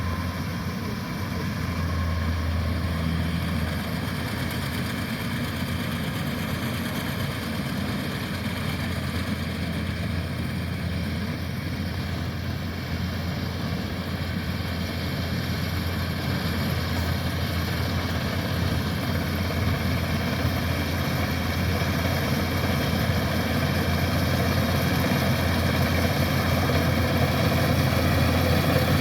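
Kubota rice combine harvester's diesel engine running steadily with a deep hum, getting gradually louder toward the end.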